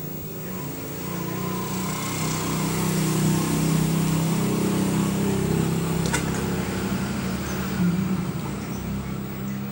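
A small engine running, growing louder over a few seconds and easing off near the end.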